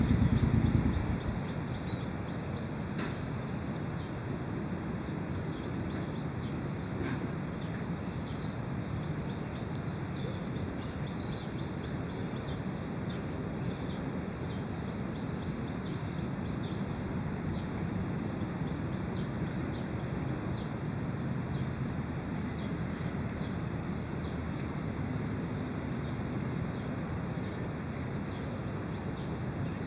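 Outdoor field ambience: a steady low rumble with scattered short bird chirps and a thin, steady high-pitched tone throughout. A brief louder low rumble in the first second.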